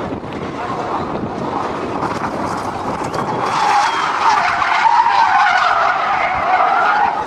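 Car tyres screeching as a sedan drifts sideways at high speed, over engine and road noise. The squeal sets in about halfway through, gets louder and wavers in pitch.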